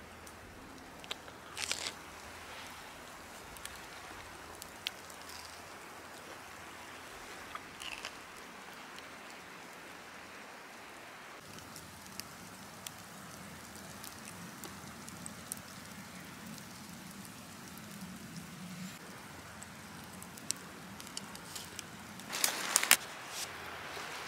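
Woodland ambience: a steady faint hiss with scattered small crackles and clicks. A short crunch comes about two seconds in, and a louder burst of crunching near the end.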